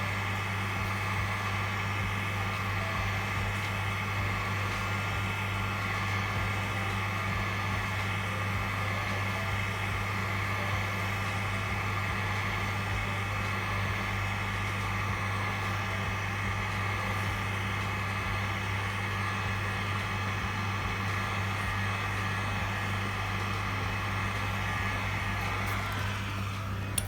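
Hot air gun blowing steadily, a low motor hum under a rush of hot air, heating a tablet's front glass to soften the adhesive before the glass is lifted. The air rush fades near the end.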